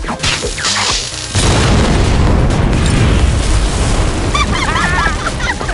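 A loud explosion-like boom about a second and a half in, followed by a sustained heavy rumble, over music.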